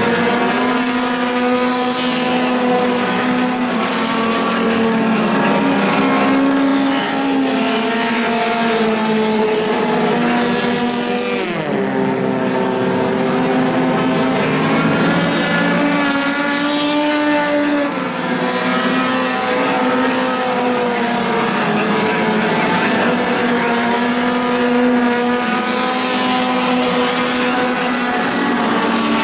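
A field of four-cylinder dirt-track race cars running around the oval, their engines rising and falling in pitch as they accelerate down the straights and lift for the turns. About halfway through, there is a sharp drop in pitch.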